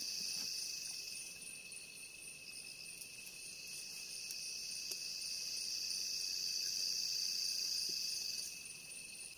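Crickets and other insects chirring in a steady chorus: a constant high buzz with a thin steady tone below it and a faster pulsing trill above it. The buzz fades shortly before the end.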